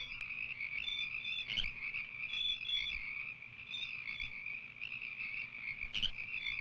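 Frogs croaking over a steady high chirr of crickets: short calls repeat every half second or so on top of an unbroken insect trill, a night-marsh sound-effect track.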